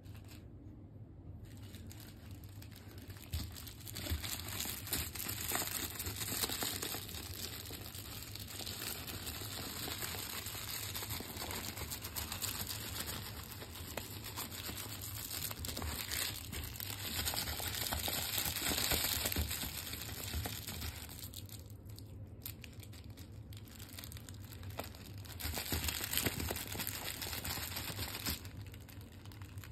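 Plastic crinkle lining inside a plush dog toy crinkling and crackling as a puppy bites, shakes and tugs it. The crinkling comes and goes, breaking off for a couple of seconds about two-thirds of the way in.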